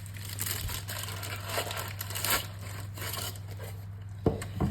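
Crinkling and rustling of something being handled, with a sharp knock near the end, over a steady low electrical hum.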